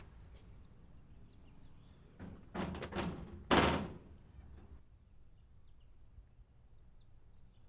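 Knocking on a wrought-iron security screen door: a few quick knocks about two and a half seconds in, then one louder bang.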